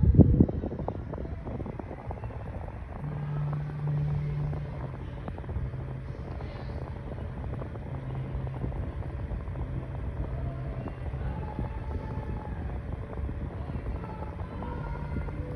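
Mainstays 9-inch box fan switched on with a clunk at the start, then running on its low speed: a steady motor hum under a rumble of moving air.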